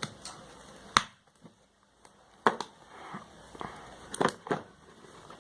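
Phone box and packaging being handled, with about five sharp clicks and knocks spread over a few seconds.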